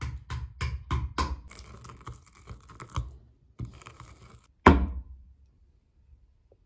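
Wooden pounder striking a wooden board, crushing walnuts and green olives: a run of knocks about three a second, then scraping and crunching, with one loud thud a little before five seconds in.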